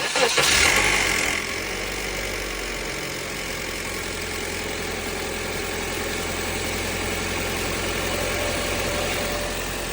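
2010 Toyota Corolla engine starting, revving up loud for about a second and a half, then settling into a steady idle. The idle carries a small noise that the owner wonders may be the timing chain or something internal.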